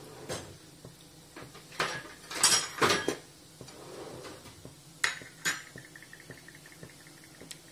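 Metal kitchen utensils clinking and knocking against pots and dishes about six times, loudest in a cluster two to three seconds in, over the faint sizzle of cumin and mustard seeds frying in oil.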